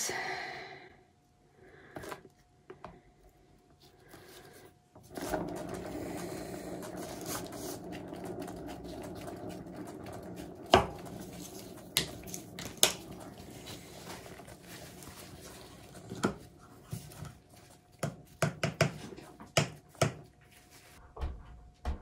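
Painting turntable spun by hand with the wet canvas on it: a steady rolling rumble that starts abruptly about five seconds in and fades as the spin slows, with a few sharp clicks. After it stops come scattered clicks and knocks.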